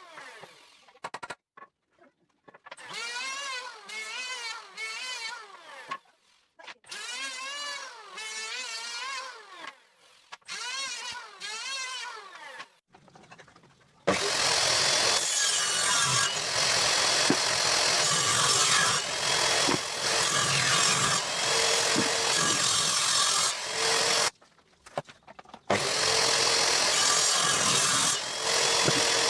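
Handheld electric power tool cutting wood: it runs loud and steady for about ten seconds, stops for about a second, then runs again. Before it starts, the first half holds phrases of a wavering pitched sound separated by short silences.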